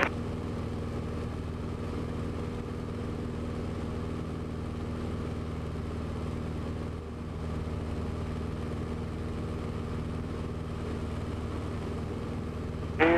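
Cessna 150's four-cylinder Continental O-200 engine and propeller droning steadily in flight, heard inside the cockpit, with a brief slight dip in level about seven seconds in.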